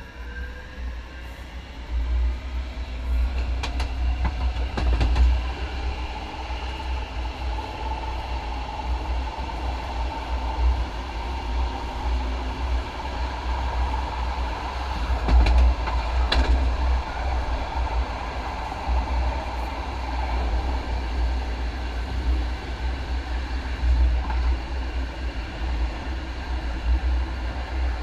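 Light rail train accelerating and running on track, its motor whine rising in pitch at the start, then a steady rumble of wheels on rail. A few sharp clicks come about 4 to 5 seconds in and again around 15 to 16 seconds in as the wheels cross track switches.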